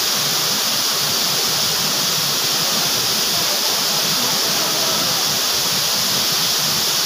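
Waterfall pouring into a rock plunge pool: a steady, loud rush of falling water with a strong hiss.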